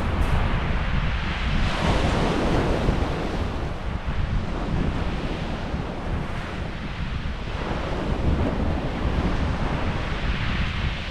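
Waves breaking and washing up a shingle beach, swelling and falling back every few seconds, with wind buffeting the microphone as a constant low rumble.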